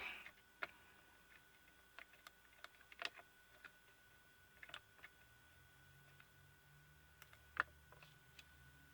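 Faint, scattered small clicks and ticks of hands working on a small electronic device's plastic and metal parts, as tape is peeled off. A faint low hum comes in about halfway through.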